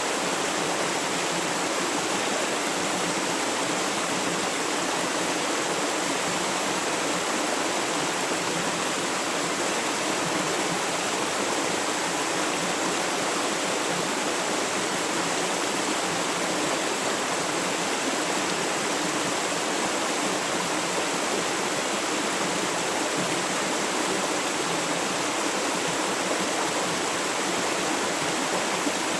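Flowing river water, a steady, unbroken rushing with little deep rumble.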